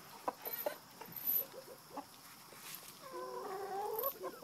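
Chickens clucking in short, scattered notes, then one longer drawn-out call about three seconds in that rises slightly at its end.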